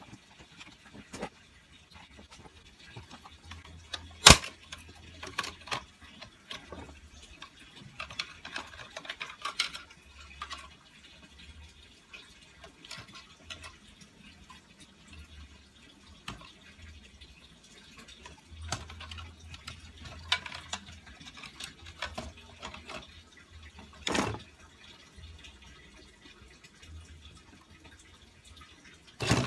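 Hands and a small screwdriver working on a DJI Phantom 3 drone's plastic shell: scattered light clicks and scrapes as screws are undone and the cover is handled and pried loose. A sharp click about four seconds in is the loudest sound, and another comes about twenty seconds later.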